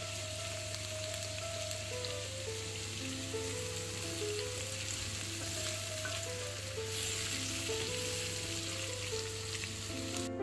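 Sliced carrots and onions sizzling in oil in a frying pan and being stirred with a wooden spatula; the sizzle grows louder for the last few seconds. Soft background music plays underneath.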